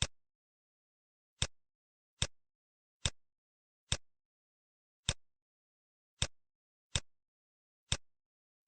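Computer mouse clicking: about eight sharp single clicks at uneven intervals of roughly a second, with silence between.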